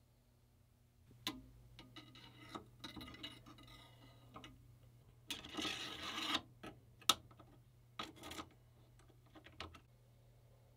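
Bicycle chain links clicking and rattling faintly as the chain is handled and bent around a steel sword blade, with a longer rattle around the middle and a few sharp single clicks after it.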